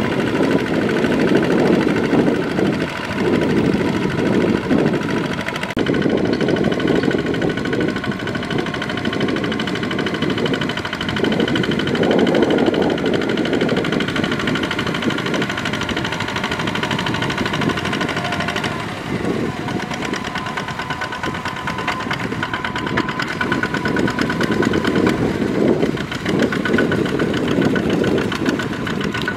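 Single-cylinder diesel engine of a two-wheel walking tractor running steadily under load, knocking as it drives its cage wheels through flooded mud.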